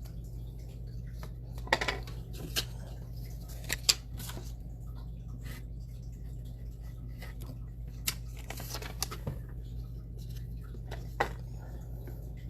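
Scattered light clicks and taps of small objects being handled, the sharpest a couple of seconds in and again about four seconds in, over a steady low electrical hum.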